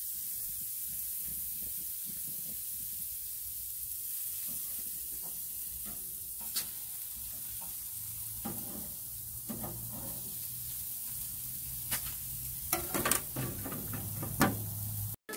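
Burger patties and jerk chicken sizzling on an outdoor grill: a steady hiss, with a few light clicks and knocks in the second half.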